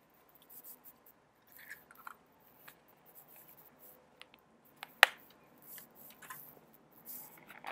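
A person eating close to the microphone: soft chewing and small clicks of a plastic fork, with one sharp click about five seconds in.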